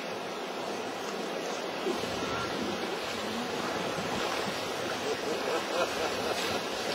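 Steady rushing of whitewater river rapids around a raft.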